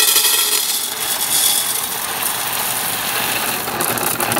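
Whole coffee beans pouring from a bag into a canister: a continuous rush of beans hitting the canister and each other.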